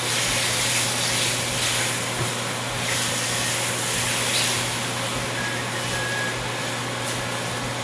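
Stovetop cooking noise: a steady hiss and whoosh over a constant low hum, swelling louder a few times.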